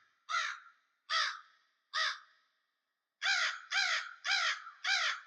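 Crow cawing: three spaced caws, then after a short pause a quicker run of caws, about two a second.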